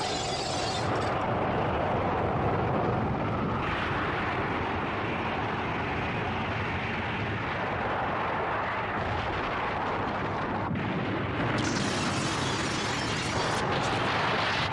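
Animated-film sound effect of an atomic bomb's blast wave: a continuous, dense explosion rumble without separate bangs. It grows hissier about four seconds in and brighter and a little louder near the end.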